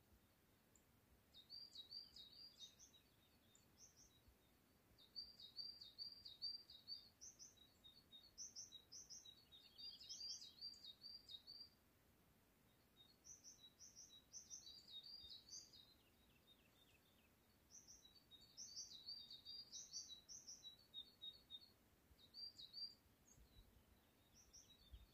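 A small songbird singing quietly in high, quick, repeated phrases, about six bursts of song a few seconds apart.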